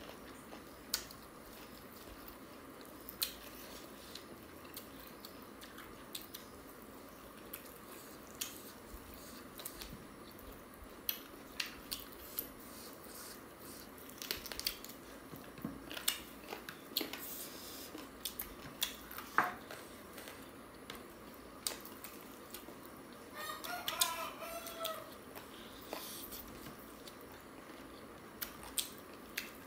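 Close-up eating sounds of rice and chicken curry eaten by hand: chewing, lip smacks and short sharp clicks of fingers on a plastic plate, scattered throughout. About three-quarters of the way through, a brief wavering pitched call lasts a second or so.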